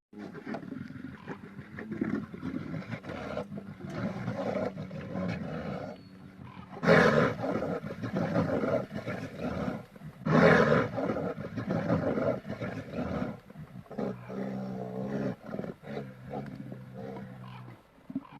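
Designed creature sound effects for a Daeodon, a giant boar-like prehistoric entelodont: a run of growls with two loud roars, one about seven seconds in and one about ten seconds in, and a steadier, lower pitched growl near the end.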